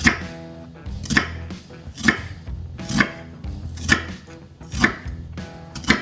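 Kitchen knife chopping through an onion on a cutting board: seven firm cuts at an even pace of about one a second.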